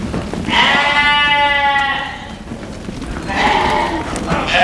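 Sheep bleating: a long call about half a second in, a second call around three seconds in, and another starting near the end.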